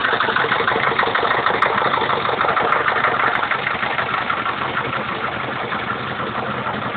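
Small red vintage tractor's engine running steadily at low speed, with a fast, even firing beat.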